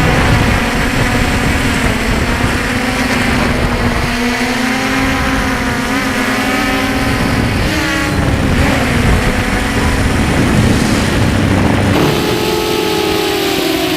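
Quadcopter drone's motors and propellers humming, several tones drifting up and down in pitch as it manoeuvres, with a shift in pitch near the end.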